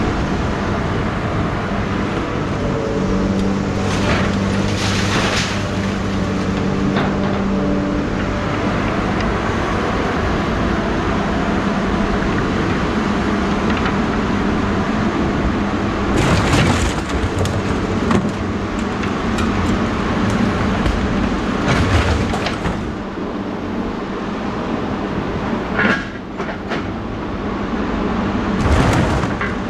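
A motor vehicle running steadily, with loud metallic clanks and rattles every few seconds.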